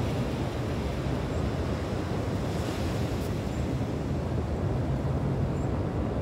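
Sea surf washing in steadily, mixed with wind rumbling on the phone's microphone.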